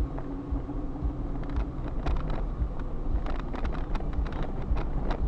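Car cabin noise picked up by a dashcam while driving on a wet road: a steady low engine and road rumble with repeated low thumps, and scattered sharp ticks from about a second and a half in.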